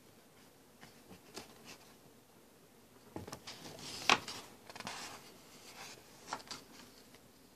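Glossy magazine pages being turned by hand: paper rustling and swishing, loudest as a page flips over about four seconds in, with lighter rustles before and after.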